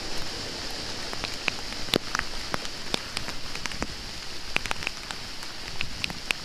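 Steady hurricane rain falling, with scattered sharp ticks of individual drops striking close to the microphone.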